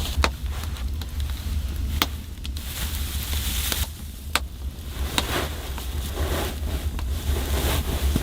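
A few sharp clicks and pops with patches of rustling over a steady low rumble.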